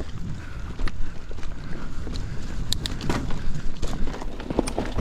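Mountain bike rolling fast over a dirt trail: a steady low rumble from the tyres, broken by frequent sharp clicks and rattles of the chain and frame over bumps, with a cluster of louder clacks a little under halfway through.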